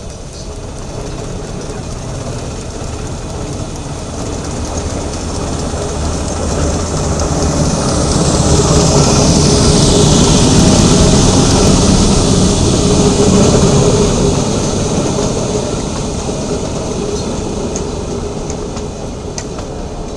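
Electric rack-railway train passing close by on the next track, heard from a moving carriage: the running rumble and clatter swell to loudest about halfway through as the locomotive goes by, with a high whine that falls in pitch as it passes, then ease off as its carriages roll past.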